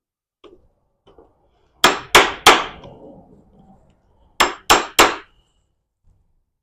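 Six sharp hammer blows on steel in two quick sets of three, each ringing briefly: a hammer working at the locking tab of a very tight nut on a Mazda M5R1 manual transmission to break it loose.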